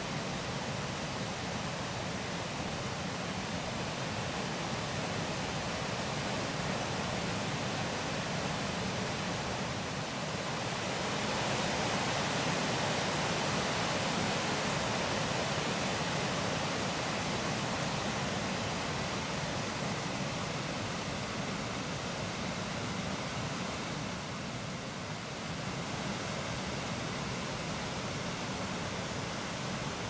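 Waterfall and shallow river rapids rushing steadily, the sound swelling for several seconds in the middle.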